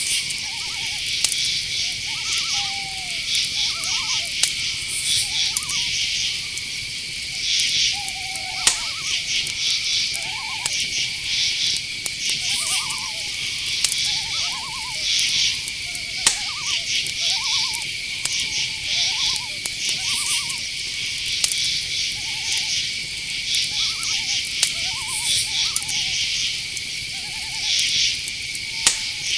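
Night-forest ambience: crickets chirring in a steady high drone with pulsing trills, under a stream of short, repeated calls every second or two, which the track gives as owls. Now and then a sharp click.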